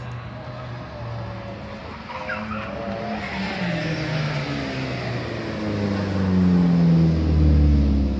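Tuned Ford Fiesta ST (Stage 4) engine at racing speed round a sprint circuit, its note rising and falling with throttle and gear changes. It grows louder near the end.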